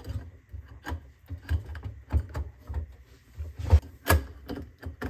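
Fluorescent tubes being fitted into the lampholders of a dual F20T12 fixture: irregular clicks, knocks and rubbing of the glass tubes and the metal fixture against a wooden bench. The loudest knocks come about four seconds in.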